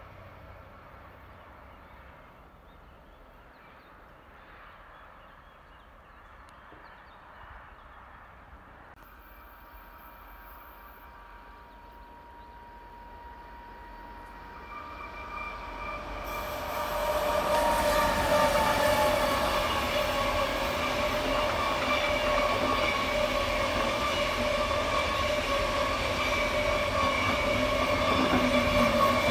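Electric-hauled SBB double-deck intercity train approaching on a curve and then passing close by. Faint at first, it swells about halfway through into a loud steady rolling noise with several ringing tones from the wheels on the curved track.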